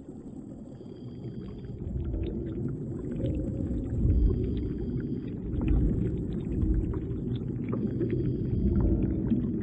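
Underwater ambience picked up by a camera in its housing: a low, steady water rumble with faint scattered crackling clicks, swelling in loudness a few times.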